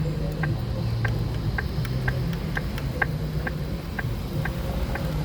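Accessible pedestrian signal push-button sounding its locator tone: short, even ticks about twice a second while the crossing is on wait, over steady traffic noise.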